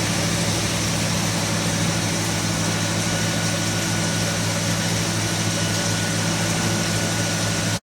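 Steady machinery running in an air micro grinder production workshop: a constant low hum under an even hiss, with no change until it cuts off abruptly near the end.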